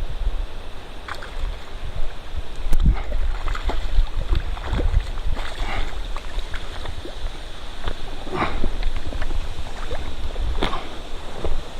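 Wind buffeting the microphone in uneven low gusts over the steady rush of river water, with scattered short clicks and knocks.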